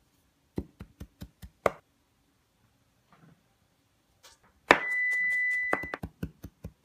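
Chef's knife chopping fresh herbs on a cutting board: a handful of quick knife strikes. Midway, a sharp metal clink with a steady ring lasting about a second, as the knife meets the stainless steel mixing bowl. Rapid chopping resumes near the end.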